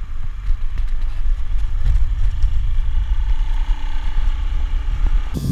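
Motor scooter riding along a road: a steady engine drone under heavy low wind rumble on the microphone.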